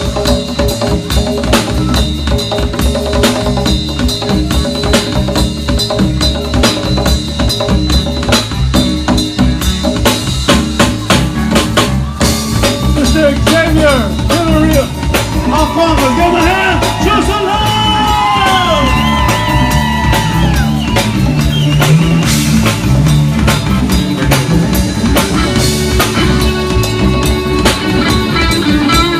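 Live rock band playing: a drum kit and bass keep a dense, steady beat, and from about halfway in a lead melody with bending, wavering notes rises over it for several seconds.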